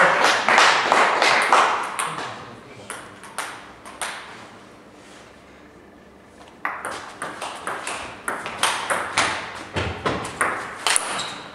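Table tennis balls clicking off paddles and the table: a dense run of sharp ticks, a lull of a few seconds, then a quick rally of ticks from about halfway through.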